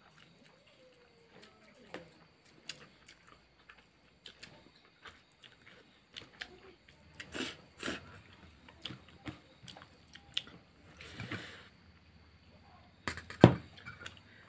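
Close eating sounds of rice being eaten by hand: chewing and wet mouth smacks with scattered short clicks and taps, the loudest a sharp click a little before the end.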